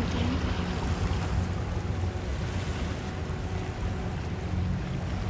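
Hanse 455 sailing yacht's inboard engine running steadily at low speed as the boat motors upriver: a constant low hum under a rush of wind and water.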